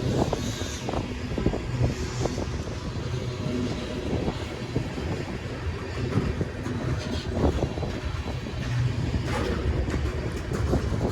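Freight train cars rolling slowly past: a steady low rumble of steel wheels on the rails, with frequent irregular clicks and clacks from wheels crossing rail joints.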